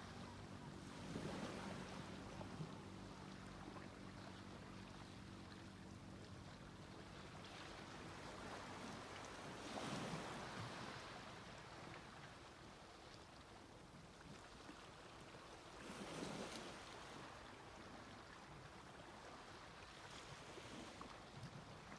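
Quiet sea waves washing onto a beach, swelling and breaking three times, at about a second, ten seconds and sixteen seconds in. A faint low steady hum, like a distant motor, sits underneath and fades out about halfway through.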